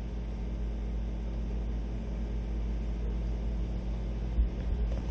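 Steady low hum and hiss of a bowling alley as a bowler makes his approach, with one dull thump a little over four seconds in.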